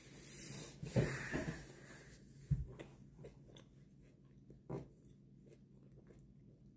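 A person eating steak close to the microphone: chewing and biting, with a few sharp knocks and clinks of cutlery and a plate in the first five seconds.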